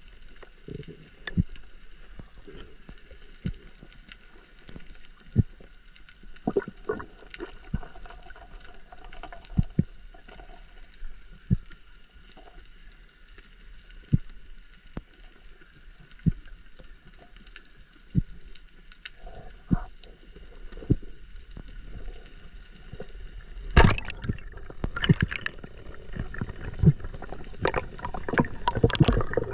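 Underwater sound on a reef dive: scattered sharp clicks and knocks over faint steady high tones. About 24 seconds in comes a loud sharp crack, the speargun shot into a giant trevally, followed by a busy run of knocks and rushing water as the speared fish struggles.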